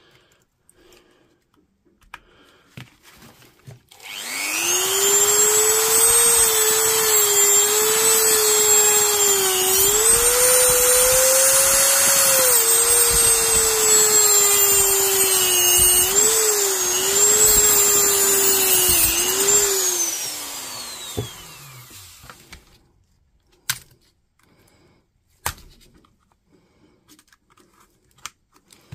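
Dremel rotary tool with a cut-off wheel running at high speed, cutting through a lithium-ion battery pack's metal connection strips; its high whine wavers and dips in pitch as the wheel bites into the metal. About twenty seconds in it is switched off and spins down with a falling whine, followed by a few light clicks.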